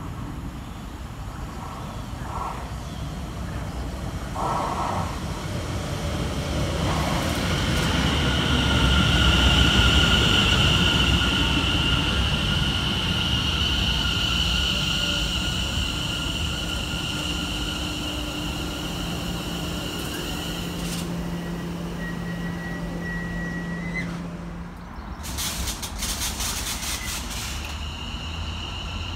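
A Greater Anglia Class 720 electric multiple unit running into the platform with a steady high whine over wheel rumble, loudest as the front passes about ten seconds in. A tone cuts off as it comes to a stand about 24 seconds in, followed by a short burst of noise.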